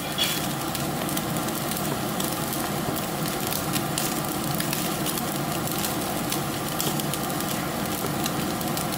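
Food sizzling and crackling steadily on the ASTEUS infrared grill, searing under its glass-ceramic radiant burner, with many small pops throughout.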